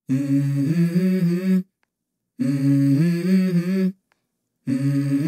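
Background music: a wordless hummed vocal melody in three phrases of about a second and a half each, with short silent gaps between them.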